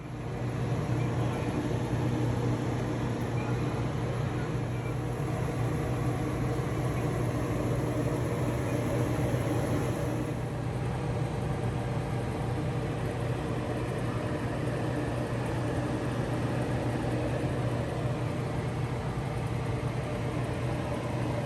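A steady low mechanical hum with a constant drone and a few fixed tones above it; a faint high hiss over it drops away about halfway through.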